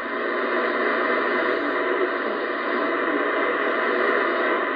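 Steady shortwave static from a Yaesu FTdx10 transceiver's speaker as its main dial is tuned across the 6 MHz band: an even hiss with no station audible.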